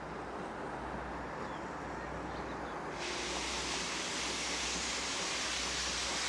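Steam locomotive C58 239 approaching while working hard: a steady low rumble, joined about halfway through by a loud, even hiss that stops abruptly at the end.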